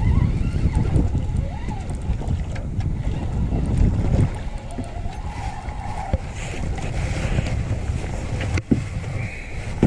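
Wind buffeting the microphone as a dense low rumble, with light handling noise from the boat and rod. There is a single sharp knock near the end.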